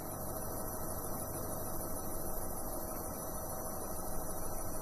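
Steady hum and hiss of a helicopter's engines and rotor in flight.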